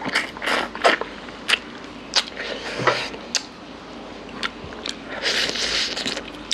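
Close-miked eating of mutton curry by hand: biting and chewing meat off the bone, with wet smacking and sucking clicks throughout and a longer hissing sound about five seconds in.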